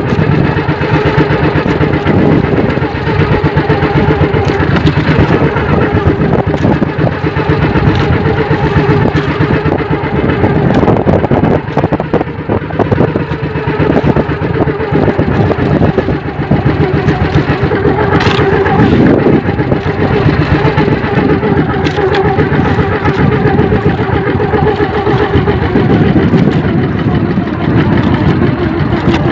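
Engine of a motorized outrigger fishing boat (bangka) running steadily, underway at sea.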